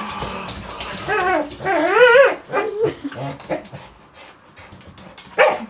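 Border collie making vocal play noises while pulling on a rope toy in tug-of-war, a whine-like sound that wavers up and down in pitch, loudest about two seconds in. A short loud burst of the same comes near the end.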